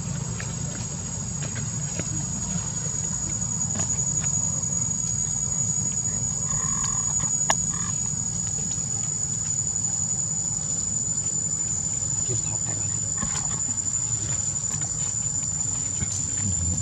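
Insects droning steadily in one unbroken high-pitched whine, over a low steady rumble, with a faint click now and then.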